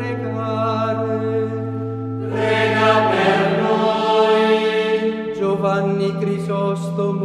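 A choir chanting an Italian litany over a held low drone note; the drone shifts in pitch about halfway through, and the voices swell fuller in the middle.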